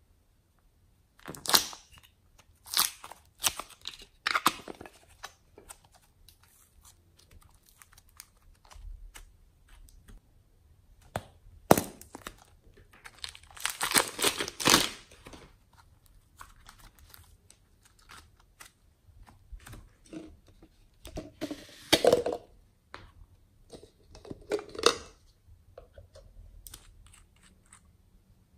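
Plastic packaging being handled: scattered crinkles and rustles of a clear plastic bag of clay. There is a sharp click about twelve seconds in and a longer stretch of crinkling and tearing about two seconds later.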